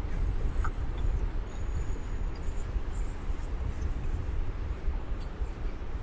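Marker pen writing on a whiteboard: faint, irregular squeaks and scratches over a steady low rumble of room noise.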